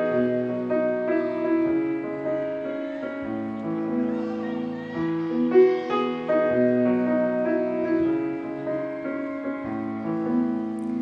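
Slow, tender piano music playing long held chords.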